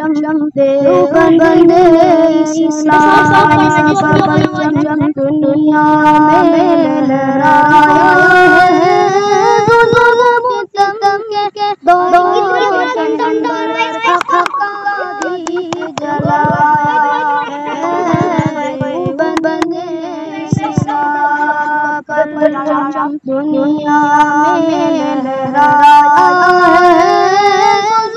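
A boy singing an Urdu nazm unaccompanied: a high child's voice in long melodic lines with held, wavering notes, broken by short pauses for breath.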